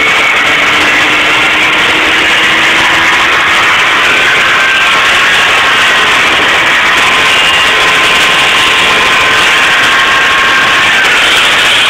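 Snowmobile running under way, a loud, steady engine drone with a thin whine that drifts slightly in pitch.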